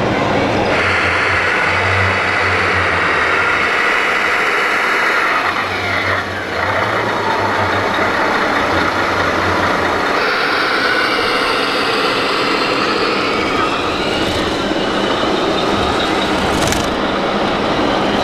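Radio-controlled model trucks running with engine-type sound effects over the steady din of a busy exhibition hall, with a falling whine about six seconds in.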